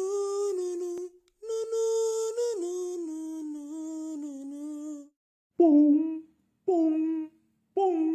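A high voice humming held notes that step up and down, then from about five and a half seconds in, short hummed notes about once a second, each dipping in pitch and then levelling off.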